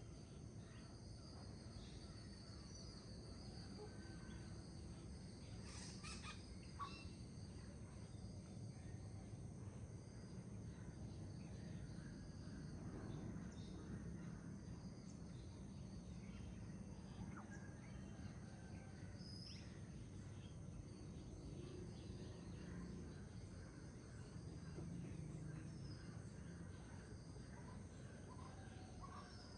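Faint forest birdsong, scattered short chirps and calls, over a steady low rush of flowing river water and a continuous high insect trill.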